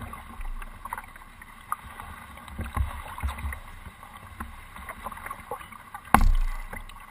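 Canoe under way on calm water, heard from the bow: scattered small knocks and water sounds against the hull, with one loud thump on the hull about six seconds in.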